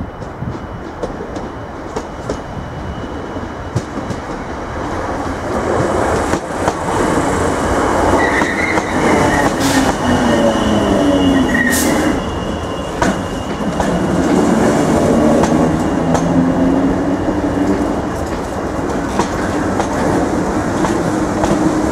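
Irish Rail 8300-class DART electric multiple unit arriving and running past at slowing speed, its wheels clicking over the rail joints. It grows louder as it draws close, with brief wheel squeals and a whine that falls in pitch as the train slows.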